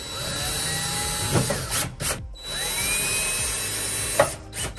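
DeWalt 20V cordless drill/driver running under load at the heater's lower mounting bracket, in two runs of about two seconds each with a short pause between. Its motor whine rises in pitch as it spins up each time, and it stops abruptly a little after four seconds.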